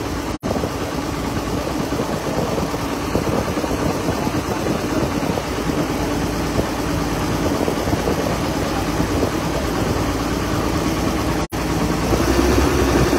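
Passenger ferry boat's engine running steadily, a low hum that grows louder near the end. The sound cuts out for an instant twice.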